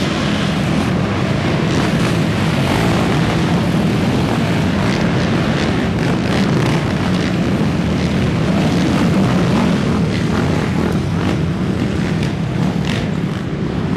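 A pack of racing quads (ATVs) at full throttle off the start, several engines revving and running together in a continuous loud din.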